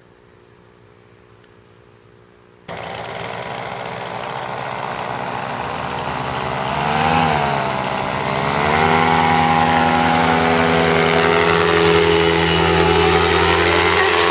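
Paramotor engine and propeller. A faint distant hum gives way suddenly, about three seconds in, to the engine running loud and close. Its pitch rises and falls back around the middle, then it holds steady.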